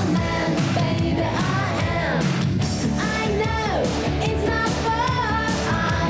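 Live rock band performance: a woman singing lead, with sliding and held notes, over electric guitars and a drum kit.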